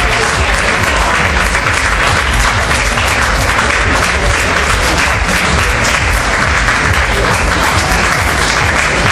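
Crowd applauding steadily, with music playing underneath.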